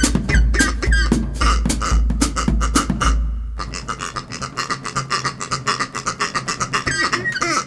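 Rubber toy pigs squeezed in rhythm as a percussion instrument, giving short gliding squeaks over bass-drum beats about twice a second. After a brief pause about three seconds in, the squeaks come alone in a fast run.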